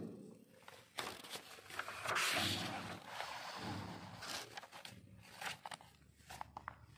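Paper rustling as a notebook page is turned, loudest about two seconds in, followed by a few light taps and rubs of handling.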